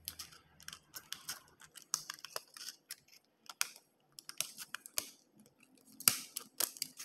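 Scissors cutting through two stacked sheets of thin aluminum soda-can metal: a series of short, crisp snips at an uneven pace with brief pauses, loudest about six seconds in.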